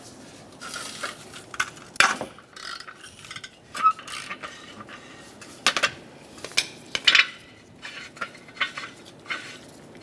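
Ratchet wrench and 22 mm O2 sensor socket clicking and clinking in irregular metallic taps as the oxygen sensor is worked loose from the exhaust manifold catalytic converter.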